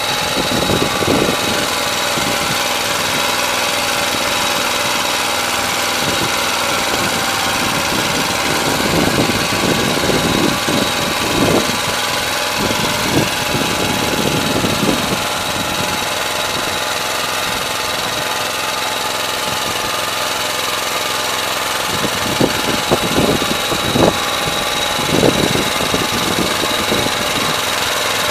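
Motor Sich walk-behind tractor's engine running steadily under load as it pulls a PN-1 single-furrow plough through the soil. Short irregular bursts of noise come now and then, mostly in the middle and near the end.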